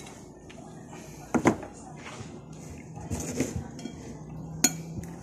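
Metal spoon clinking and scraping against a bowl during a meal, with a few sharp clinks: the loudest about a second and a half in, a cluster a little past halfway, and one more near the end.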